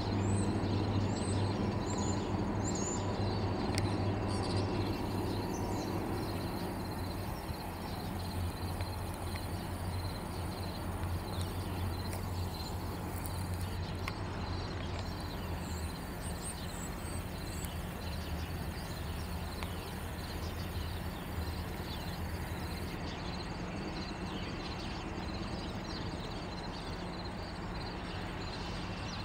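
Diesel engines of EMD freight locomotives running at a distance, a steady low hum that eases off after about halfway. A few faint bird chirps come over it.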